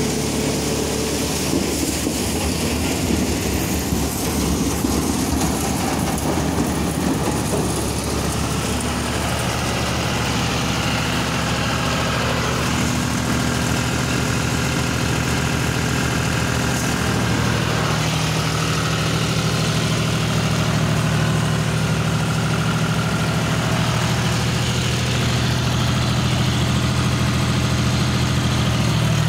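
John Deere 5310 tractor's three-cylinder diesel engine running steadily under load, driving a paddy thresher through its PTO. The thresher's noise runs along with it, and the engine note shifts slightly partway through.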